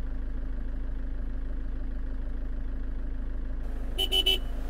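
A steady low hum, with three quick phone-camera shutter clicks in a row about four seconds in.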